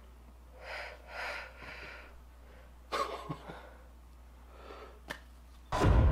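Soft breathy exhales from people reacting in shock, with a small click about three seconds in. Just before the end a loud deep rumbling noise starts suddenly.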